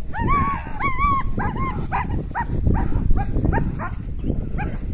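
German shepherd-type dog barking excitedly during protection training: two longer rising-and-falling calls at the start, then a run of short barks about three a second.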